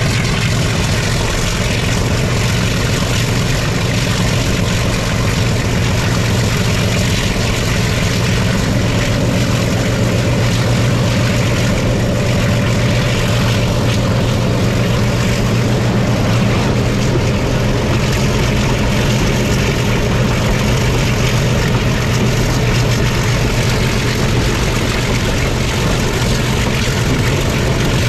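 ALCO diesel-electric locomotive engine running steadily while the train is under way, a loud continuous low throb that holds unchanged throughout.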